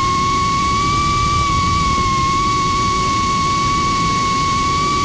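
FPV Cycle Cinesplore quadcopter's motors and propellers whining at a steady, high pitch in flight, with a fainter higher overtone and a rush of prop wash underneath, heard up close from the drone itself.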